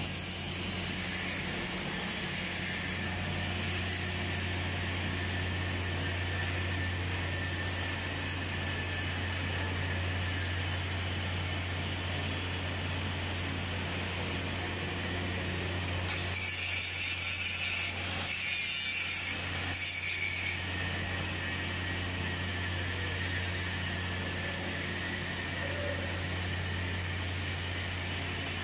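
Steady electrical hum and hiss of a TIG welding setup, with two short spells of harsher, higher hiss about two-thirds of the way through.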